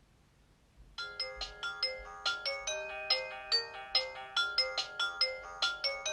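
Nokia 225 ringtone starting about a second in: a polyphonic melody of quick, short notes in repeating phrases.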